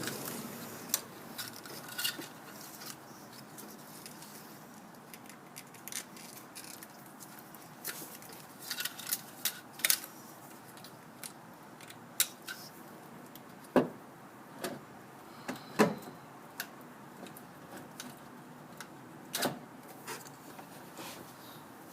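Scattered light metallic clicks and clinks of tools and parts being handled while working on a car's starter, a dozen or so short sharp ticks at irregular intervals, the loudest near the middle.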